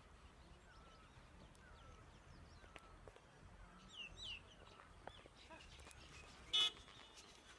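Faint, scattered bird chirps, with one short, loud squawk near the end.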